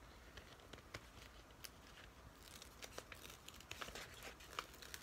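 Faint crinkling and crackling of a diamond-painting canvas's protective cover sheet being peeled back from the sticky canvas: a scatter of small ticks, busier in the second half.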